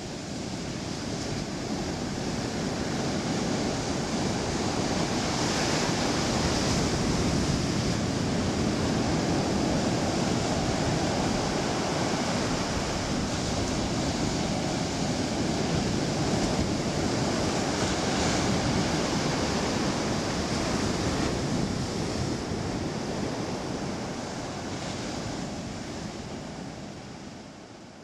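Ocean surf breaking and washing up a sandy beach, a steady rush. It swells in over the first few seconds and fades out near the end.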